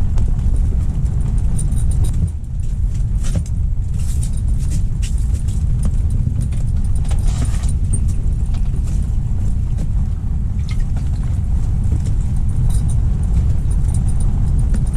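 Strong wind buffeting the microphone: a steady, heavy low rumble, with scattered light clicks and rattles over it.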